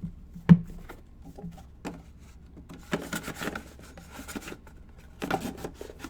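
Cardboard trading-card boxes and packaging handled on a table: a sharp knock about half a second in, then two spells of rustling and scraping.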